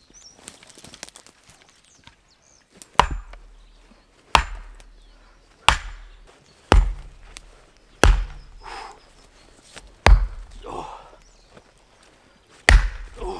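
Hammer blows driving a thick wooden stake into the ground: seven heavy strikes with a deep thud, spaced about one to two seconds apart and starting about three seconds in.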